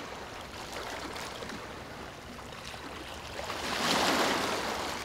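Sea waves washing onto a shore, with one wave breaking and swelling up about three and a half seconds in, loudest just after four seconds.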